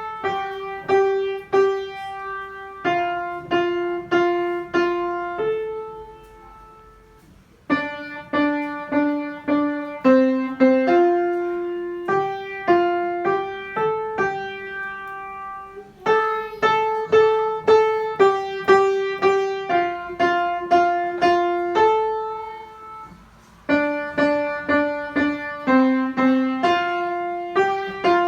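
Piano playing a simple melody, mostly one note at a time, each note struck and left to ring, in short phrases with two brief pauses where a phrase ends.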